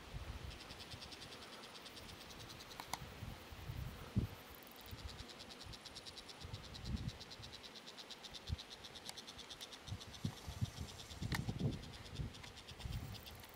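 Insects chirring in a fast, evenly pulsed high trill that drops out briefly a couple of times, over irregular low rumbles and a few sharp clicks.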